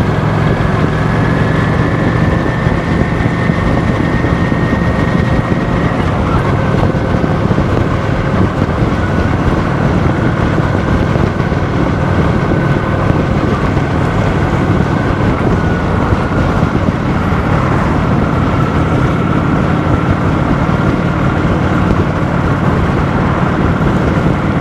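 Cruiser motorcycle engine running steadily at cruising speed, with constant wind and road noise.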